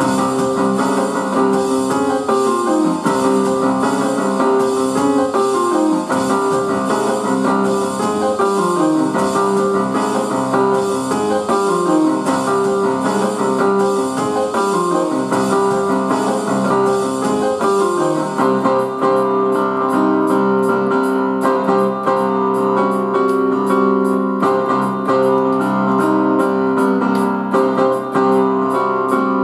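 Roland electronic keyboard played with both hands in a piano voice: sustained chords with repeated falling runs over a steady rhythmic pulse. The texture changes about two-thirds of the way through.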